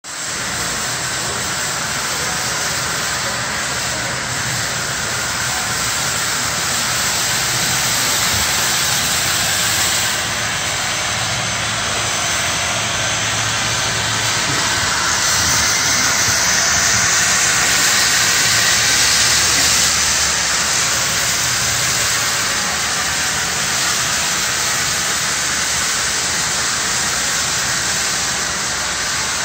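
Dyson V8 Carbon Fibre cordless stick vacuum running steadily with its soft roller cleaner head, sucking up fine dust from a test strip. It makes a continuous high airy motor whine that grows a little louder in the middle.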